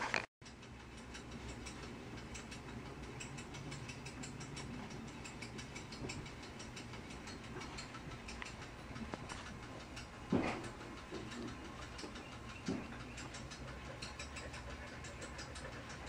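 A record and turntable being handled: faint light clicks over a low steady hum, with two louder knocks about ten and thirteen seconds in. No music plays; the turntable is not yet switched on.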